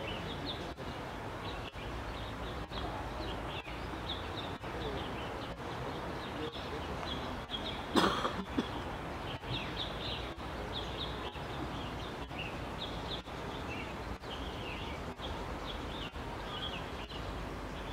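Open-air ambience: a steady background hiss with many faint, short, high chirps of distant small birds scattered throughout. A single sharp knock comes about eight seconds in.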